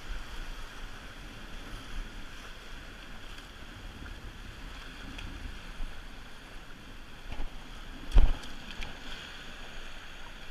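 Sea surf washing over rocks, with wind on the microphone. About eight seconds in there is a single sharp knock, the loudest sound.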